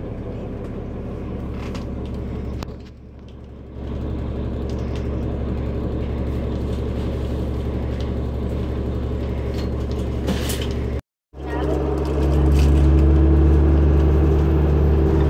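Transit bus heard from inside the passenger cabin while under way: the engine and drivetrain give a steady low drone. It grows briefly quieter about three seconds in, breaks off for an instant near eleven seconds, and then runs louder.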